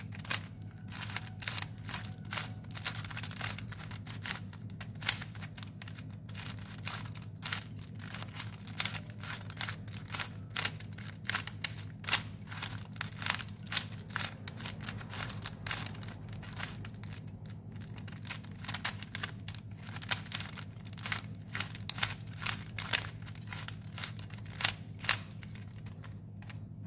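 Plastic 3x3 Rubik's cube being turned by hand during a solve: a quick, irregular run of clicks and clacks as the layers snap round, over a steady low hum.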